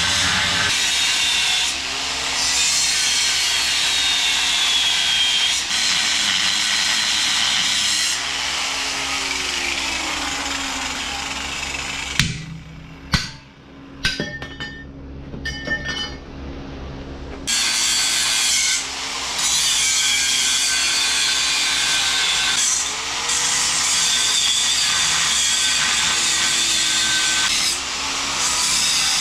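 Power grinder cutting through the steel legs of an old air compressor tank, a loud steady grinding hiss. It stops for a few seconds around the middle, where a few sharp metal knocks are heard, then resumes.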